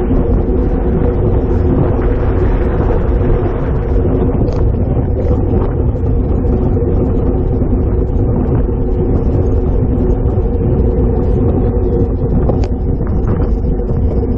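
Steady rush of wind over an action camera's microphone from riding a road bicycle at speed, heaviest in the low end, with a steady hum underneath.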